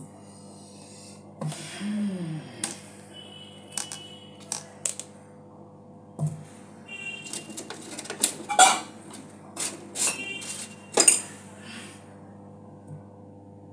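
A run of knocks, taps and short scrapes from hands moving a bottle gourd and a plastic colander on a kitchen counter, with the sharpest clatters about two thirds of the way in, over a steady low hum.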